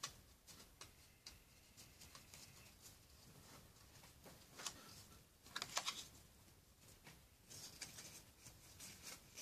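Near silence with faint clicks and rustles of trading cards being handled, a few slightly louder ones about halfway through and near the end.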